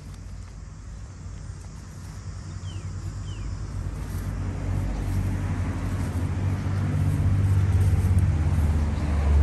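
A motor vehicle's engine passing on the nearby road: a low rumble that grows steadily louder, loudest near the end.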